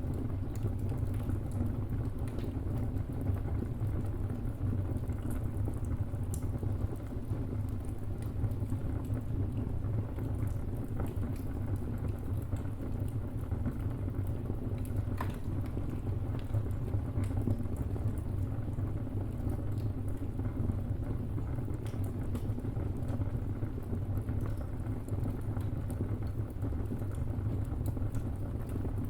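Wood fire burning in a fireplace: a steady low rumble of flames with scattered small crackles and pops throughout, one slightly sharper pop about halfway through.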